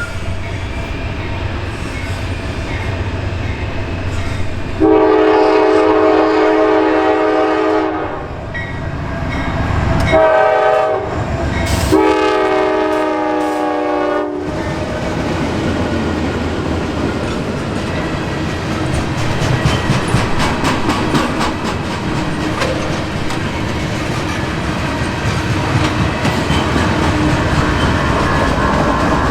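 Norfolk Southern GE AC44C6M locomotive's air horn blowing a long blast, a short one and another long one, over the rumble of the passing train. After the horn stops, the coil steel cars roll by with a steady clickety-clack of wheels over the rail joints.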